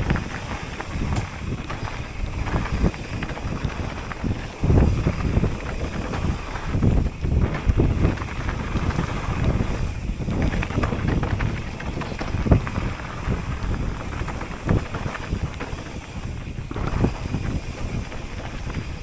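Wind buffeting the microphone of a camera on a mountain bike riding a downhill trail, with irregular thumps from the bike going over rough ground.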